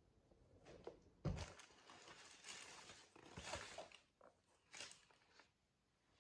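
Sneakers being handled over a cardboard shoebox lined with tissue paper: paper rustling and the shoes scuffing, with a thump about a second in, the loudest sound, and a smaller thump about three seconds in.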